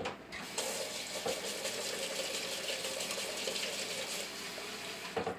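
Kitchen faucet running hot water into a small stainless steel bowl, a steady rush that starts about half a second in and stops just before the end.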